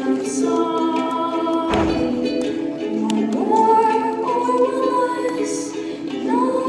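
A girl singing with held, gliding notes to her own strummed ukulele accompaniment.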